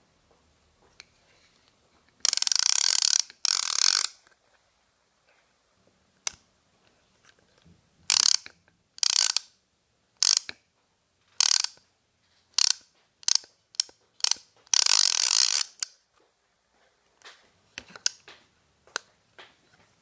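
Fishing reel's click-and-pawl ratchet buzzing as a 3D-printed plastic spool is spun by hand, in repeated spins. There are two longer runs early on, then a string of short spins, and the longest run a few seconds before the end. Near the end only a few faint clicks follow.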